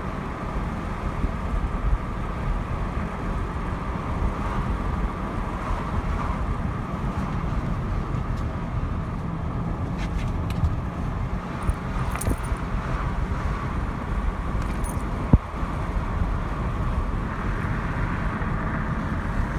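Steady road and engine noise of a moving car, heard from inside the cabin, with one sharp click about fifteen seconds in.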